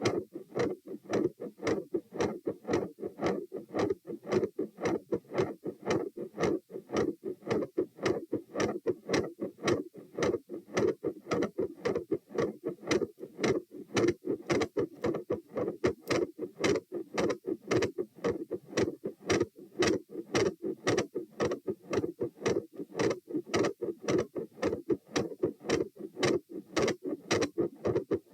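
A fast human heartbeat through a stethoscope at about two beats a second (108–120 bpm), each beat a lub-dub pair of dull thuds in an even, unbroken rhythm. The uploader hears a murmur at the second heart sound and an intermittent machinery-like murmur.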